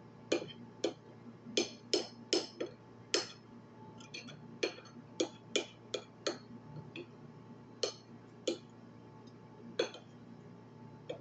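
Tableware clinking: about fifteen sharp, light clicks and clinks at irregular intervals, most of them in the first seven seconds and only a few after, as with utensils tapping a plate or glass while eating.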